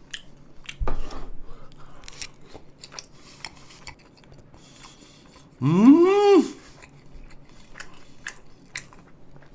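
Close-miked chewing of grilled thin-sliced beef brisket, with many small wet mouth clicks and smacks and a knock about a second in. About six seconds in comes one loud hummed vocal sound whose pitch rises and then falls.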